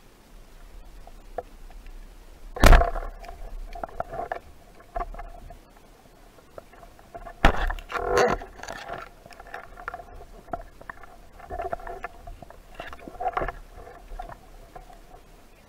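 Water splashing and knocking close to the microphone, in irregular bursts. The two loudest come about three seconds in and around eight seconds in.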